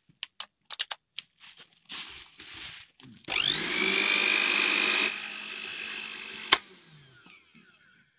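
Miyako BL-152PF AP 300-watt blender motor base running with no jar fitted. It starts about three seconds in and spins up with a rising whine, runs for about two seconds, then goes much quieter. Near the end a sharp click comes and the motor winds down with a falling whine. Before the motor starts there are a few small plastic clicks and knocks.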